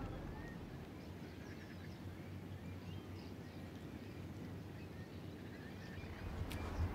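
Faint ambience: a steady low rumble with scattered small bird chirps, and one light tap near the end.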